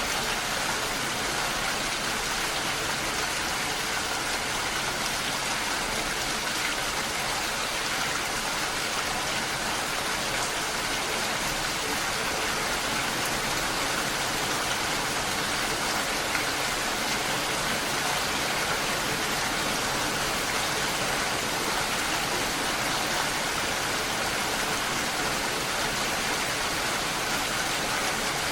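Steady rain falling, a constant even hiss of drops with no single impacts standing out.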